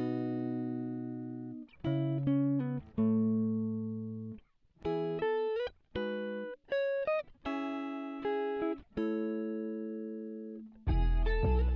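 Background music: guitar chords played one after another, each left ringing and fading, until bass and drums come in just before the end.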